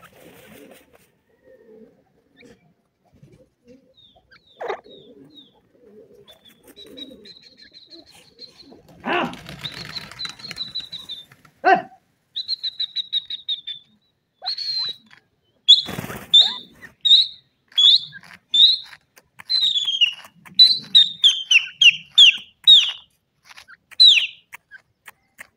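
Grey francolin calling: high whistled notes that run into a quick trill, then a loud series of sharp down-slurred whistles at about two a second. A rustling burst of wing-flapping in dry dust comes just before the trill and again as the whistles begin.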